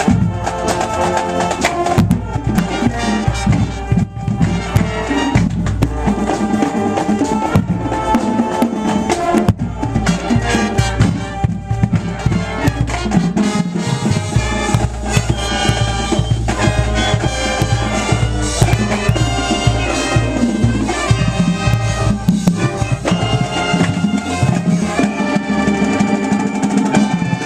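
High school marching band playing: brass carrying the tune over drums and percussion keeping a steady beat.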